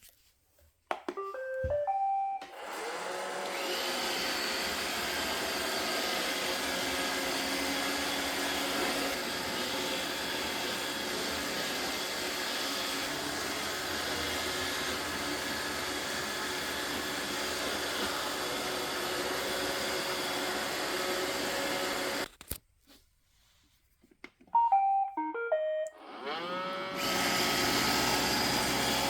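iRobot Roomba robot vacuum playing its short start-up tune, then its vacuum and brush motors running steadily. About twenty seconds later the motors cut off suddenly; after a short quiet the tune plays again and the motors spin back up with a rising whine.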